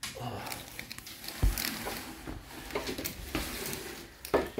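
Window blinds being opened: irregular light clicks, rattles and rustling of the slats, with one louder knock about one and a half seconds in.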